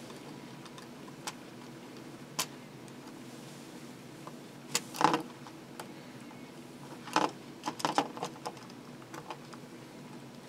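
Scattered light metallic clicks, scrapes and small jingles as a tool pries at the metal sound-module plate inside an open pocket watch case and the watch and its chain are handled.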